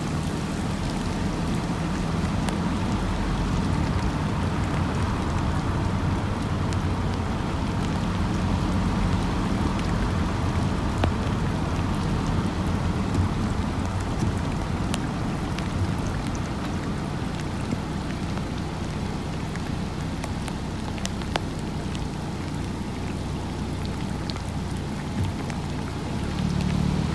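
Steady rain falling on waterlogged ground and running runoff, with scattered drops ticking close by and a low steady hum underneath.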